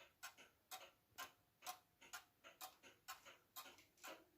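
Junghans Vienna-style wall clock ticking faintly and evenly, about two ticks a second, each tick with a lighter click just after it. Its escapement pallets are freshly oiled.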